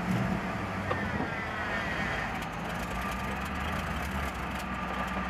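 Engine of a lifted 4x4 pickup truck running steadily at low speed under load as the truck crawls through deep snow.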